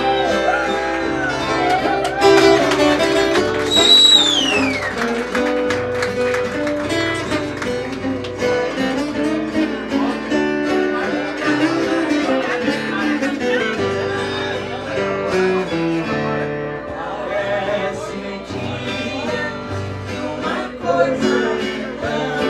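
Live band music led by a strummed and picked viola caipira over guitar, in a lively country style. A high note glides downward about four seconds in.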